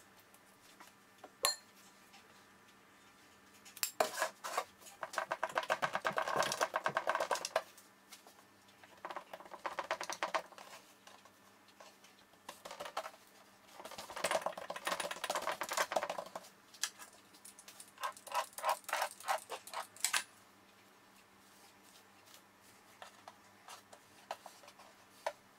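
A metal spoon scraping quickly over rolled dough on a wooden table as poppy seed paste is spread on it. It comes in four bursts of rapid strokes, each a couple of seconds long.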